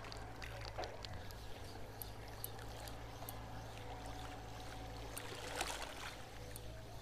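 Shallow sea water lapping and trickling, with scattered faint clicks and a steady low hum underneath.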